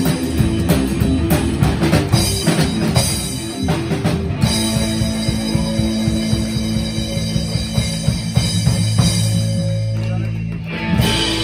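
Live rockabilly band of upright bass, drum kit and hollow-body electric guitar playing a driving rhythm, then settling into a long held chord from about four seconds in.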